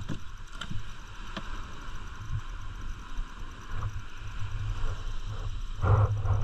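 Wind gusting on the microphone aboard a small wooden boat: an uneven low rumble, with a few light knocks in the first second or so and a louder rustle of handling near the end.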